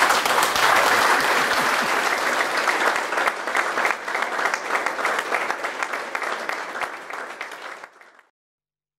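Audience applauding, many people clapping together; the applause thins and cuts off about eight seconds in.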